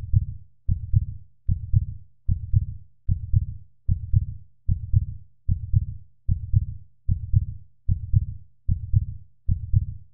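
Heartbeat sound: a steady low double thump, lub-dub, repeating about 75 times a minute.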